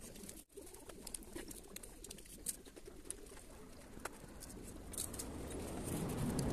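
Fingers mixing rice and curry on a steel plate: soft squelches and small scattered clicks, growing louder near the end.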